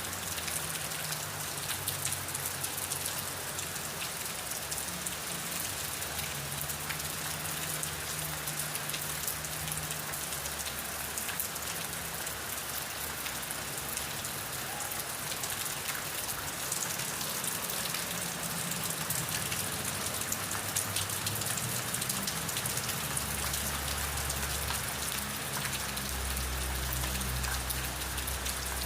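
Steady rain falling on a surface: a constant hiss dotted with many separate drop ticks. A low rumble swells underneath near the end.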